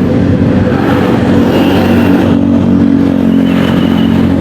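Electric radiator cooling fan of a Yamaha XMAX 250 scooter running with the ignition on and the engine off, a steady hum. It is cooling an overheated engine, with coolant still at about 120 °C.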